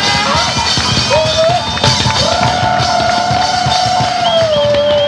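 Live rock band playing loudly: drum kit keeping a steady beat, with a long held note with vibrato coming in about two seconds in and a high steady tone entering near the end.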